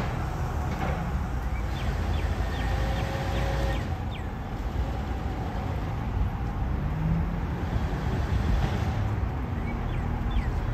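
Low, steady rumble of a 1967 Lincoln Continental's big V8 idling as the car creeps slowly onto the alignment rack.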